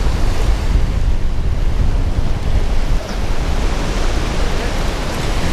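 Steady rushing noise of wind buffeting the microphone over the wash of surf at the inlet, with a deep low rumble and no distinct events.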